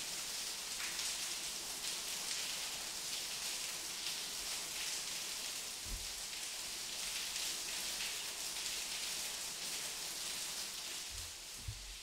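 Dense, steady patter of water dripping and splashing in a cave, with a soft low thud about halfway through and two more near the end.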